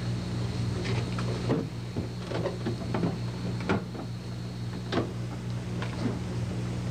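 Irregular light clicks and knocks of hands handling plastic circuit boards on a prop control panel, over a steady low electrical hum. A faint high whine stops a little past halfway.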